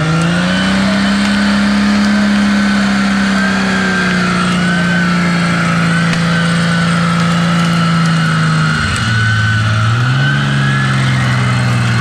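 Jeep Wrangler's engine revved and held at high revs under load as the Jeep works through deep mud, with a higher wavering whine over it. The revs drop sharply about nine seconds in, then climb again to a lower steady hold.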